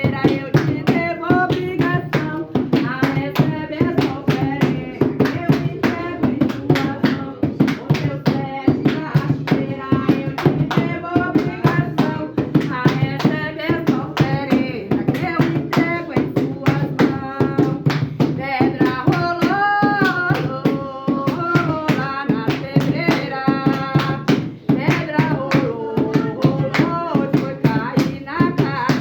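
Umbanda ponto for Exu sung over steady rhythmic hand clapping, about three to four claps a second.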